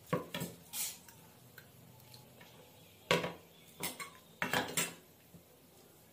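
Small stainless steel bowls knocking and clinking against a plate as they are handled and set down on it. There are a few lighter knocks in the first second, then louder sharp clinks from about three seconds in, with a quick cluster of them a little later.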